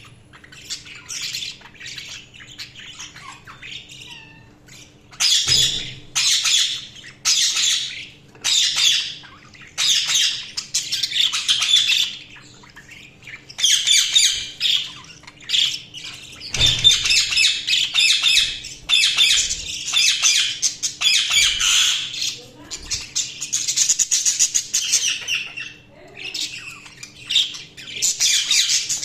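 Budgerigars chattering and squawking in repeated bouts of rapid, high-pitched warbling, soft at first and much louder from about five seconds in.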